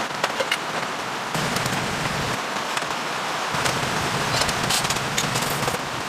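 Steady rain falling, an even hiss with many scattered light ticks and taps.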